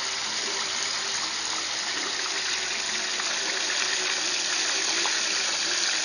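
Hot frying oil in a turkey-fryer pot sizzling and bubbling, a steady hiss as a whole fried turkey is lifted out of it.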